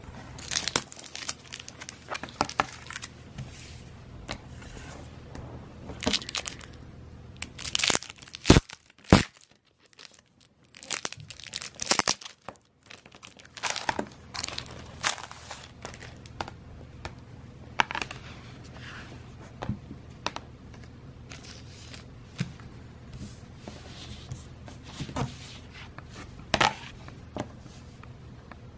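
Thin polypropylene packaging bag crinkling and tearing in irregular bursts as a thin plastic chopping board is unwrapped, with two sharp snaps close together about a third of the way in.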